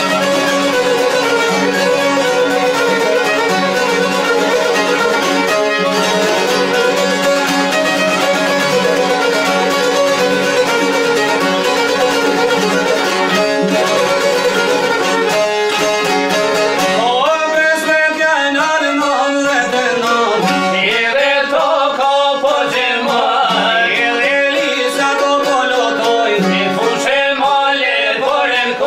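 Albanian folk music: violin and long-necked plucked çifteli lutes playing an instrumental passage together. About halfway through the low accompaniment drops away and a single wavering, bending melody line leads.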